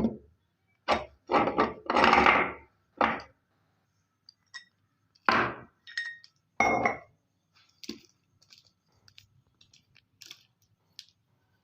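Meat grinder crushing peanuts: a series of short crunching, clinking bursts, about nine loud ones, then lighter scattered clicks from about eight seconds in.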